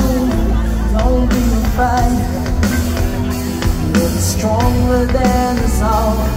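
Live rock band playing through a stage PA: a male singer's vocal over electric guitar, bass and drums.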